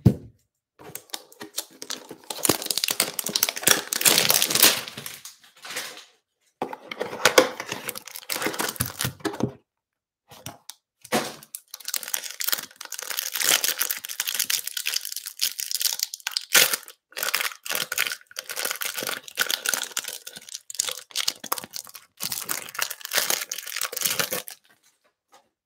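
Plastic wrapper of a trading card pack torn open and crinkled by hand: a long run of crackling, rustling bursts with short pauses, which stops about a second before the end.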